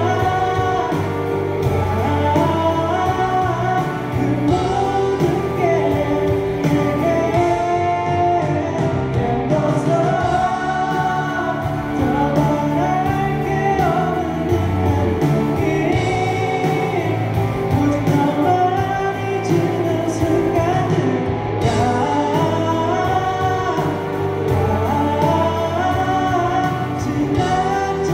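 A male vocalist singing live into a handheld microphone over instrumental accompaniment, a slow, held melody line.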